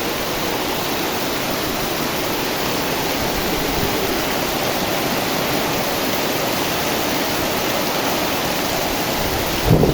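Heavy downpour with rushing water: a steady, even roar of rain and running water that holds at one level throughout.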